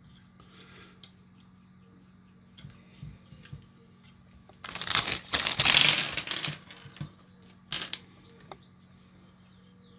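Hands handling small parts and a circuit board on a workbench: a few faint clicks, then a rustle of about two seconds in the middle, and a couple of sharp clicks shortly after.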